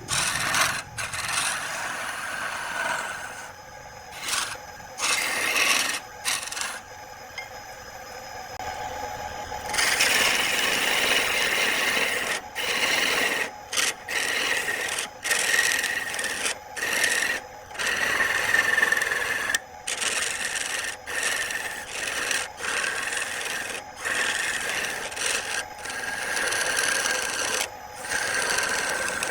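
A tool scraping and shaving wood spinning on a lathe, a rasping sound that stops and starts, with many short breaks.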